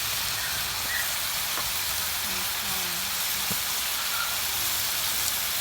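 Eel pieces frying in hot oil in a frying pan, a steady sizzle.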